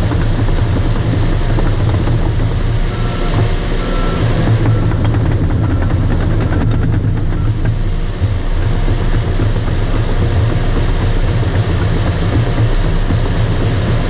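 Bulldozer's diesel engine running steadily under load with its tracks clanking, a continuous low drone.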